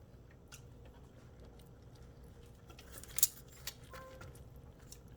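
A few light clicks and clinks of cutlery and dishes being handled, the sharpest about three seconds in, over a low steady room hum.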